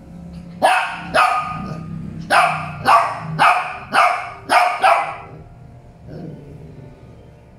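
Shih Tzu barking: about eight sharp, high barks in quick succession over some four seconds, then stopping.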